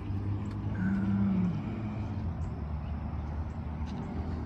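Steady low rumble of road traffic, with a brief low tone about a second in.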